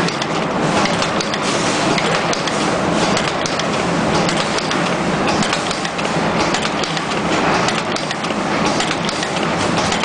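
YH-005D automatic terminal crimping machine running, a steady mechanical clatter of many quick clicks as it carries wires along and crimps terminals onto them.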